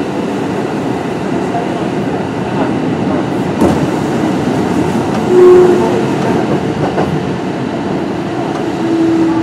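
Kintetsu 1420 series electric train with a Mitsubishi GTO-VVVF inverter running: steady rolling noise with a couple of clicks from the wheels over rail joints, and a short steady tone about five seconds in and again near the end.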